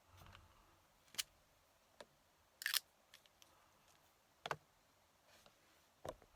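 Handling sounds: about five short, sharp clicks and knocks spaced a second or more apart, the loudest a quick double click near the middle.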